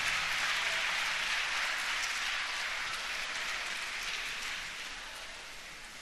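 Audience applauding at the end of a cheerleading routine, the clapping slowly dying away.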